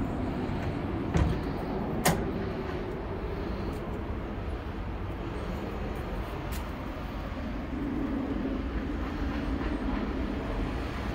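Steady city street traffic rumble, with a sharp click about two seconds in.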